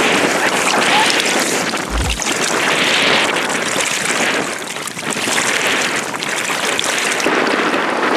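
Strong gusty wind buffeting the microphone, swelling and fading every second or two, over choppy water around an inflatable belly boat. A brief low bump about two seconds in.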